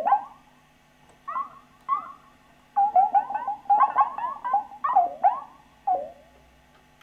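Behringer MonoPoly analogue synthesizer played in short notes that each bend in pitch. A few single notes come first, then a quick run of notes in the middle, then one last note.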